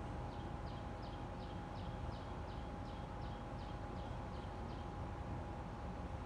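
A bird calling in a quick run of short, high chirps, each dropping in pitch, about three a second, stopping near the end. A steady faint hum runs underneath.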